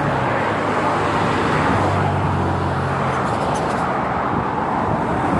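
Road traffic: cars driving past with engine hum and tyre noise, the low hum of one vehicle strongest about two to three seconds in.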